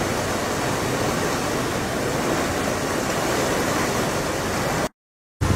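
Steady rushing of fast-flowing floodwater in a muddy river, an even noise with no engine heard; it cuts off abruptly about five seconds in.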